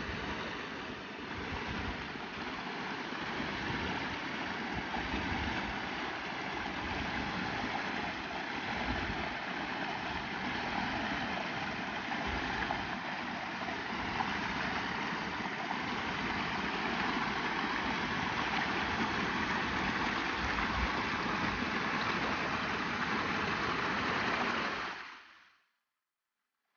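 Rushing mountain stream: a steady, even rush of water that fades out quickly near the end.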